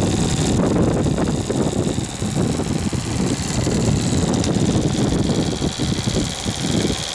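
Small twin-cylinder vertical model steam engine (TVR1a) running steadily on steam from a model Yarrow boiler, a busy mechanical chatter with a steady high hiss over it.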